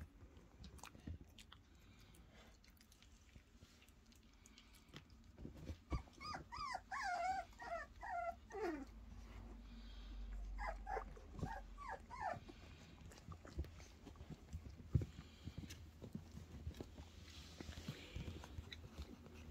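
German Pinscher puppies whimpering and squealing: a run of high, wavering squeaks about six seconds in that ends in one falling whine, and a shorter run of yelps around eleven seconds. Soft rustles and knocks of the puppies moving about come in between.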